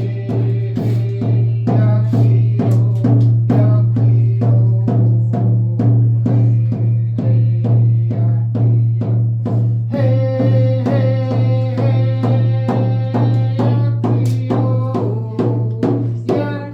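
Music: a steady, fast drumbeat with held notes of a melody over it that shift a couple of times.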